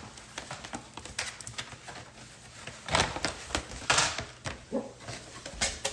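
Scattered clicks and light knocks, with two louder rustling bursts about three and four seconds in: objects being handled.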